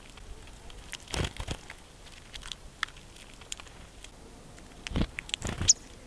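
Irregular sharp clicks and cracks with a few duller knocks: birds pecking and cracking seeds on a log. A single short high call about five and a half seconds in.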